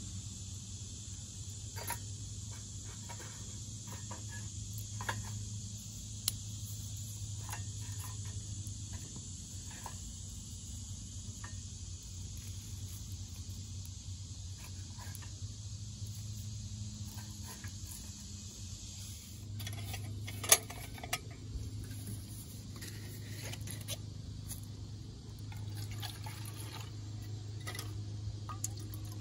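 Steady insect buzz with scattered small crackles from twigs burning in a mini rocket stove. Two-thirds of the way through there is a sharp knock, and near the end water is poured from a bottle into a metal cup.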